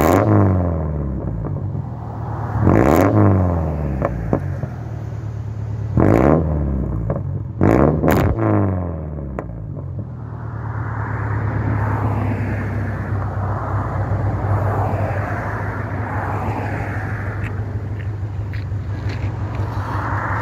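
Naturally aspirated Subaru flat-four in an Impreza with its muffler and resonator removed, run through a straight 2.5-inch exhaust with the stock cat. It is blipped in five short revs, two of them close together about eight seconds in, each falling back to idle. For the second half it idles steadily under a rushing noise.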